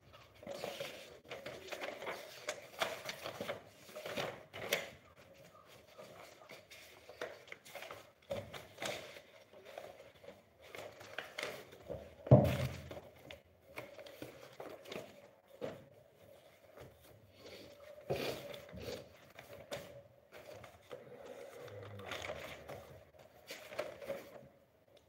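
Loose sheets of paper being handled and shuffled, rustling on and off in irregular bursts. There is one louder thump about halfway through, under a faint steady hum.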